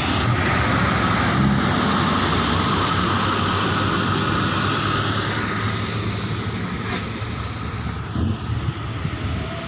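Loaded dump truck passing close by, its diesel engine and tyres on the wet road loud at first, then fading steadily as it drives away from about five seconds in.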